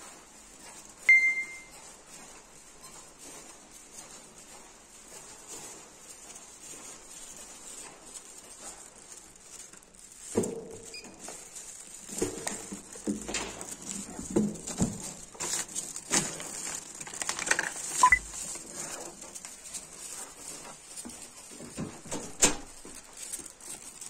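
Quiet footsteps on a carpeted corridor, with a short electronic beep and click about a second in. From about ten seconds on come the clicks and knocks of a key-card door lock, the handle and the door, mixed with a plastic shopping bag rustling as the bags are set down.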